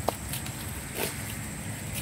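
A baby macaque scrambling over dry dirt and leaves: a sharp click right at the start and a short scuff about a second in, over a steady low hum.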